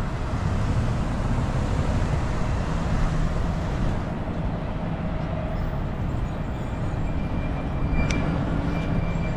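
City street traffic noise: a steady low rumble of cars and engines along the avenue, with general street hum.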